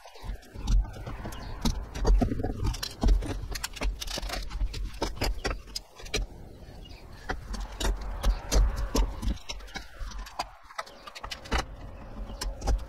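Metal bar clamps being loosened and pulled off a glued wooden keel lamination: a rapid run of clinks and knocks of metal on metal and wood, with dull thumps underneath.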